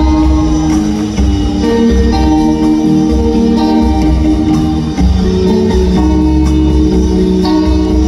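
Live rock band playing: electric guitars, upright bass and drums, a heavy low end under held guitar notes that change every second or so.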